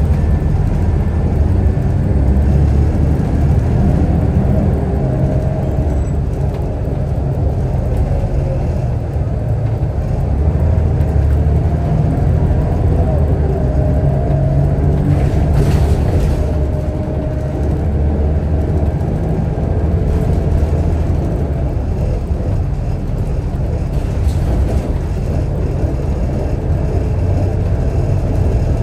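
Scania DSC9 8.9-litre inline six-cylinder turbo diesel of a Scania L94UB bus running on the road, a steady low rumble that swells and eases a little. There is a brief hiss about halfway through.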